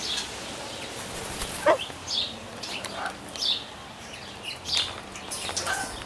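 Parrots in an aviary calling: short, high chirps repeat about every second and a quarter, with one louder, lower squawk that slides in pitch about a second and a half in. A few sharp clicks come near the end.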